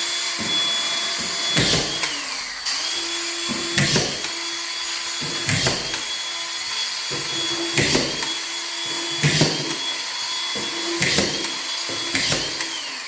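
Collated drywall screw gun with its motor whining continuously while screws are driven one after another into drywall. About seven screws go in, one every second and a half to two seconds. Each one brings a sharp click, and the motor's pitch dips and then climbs back.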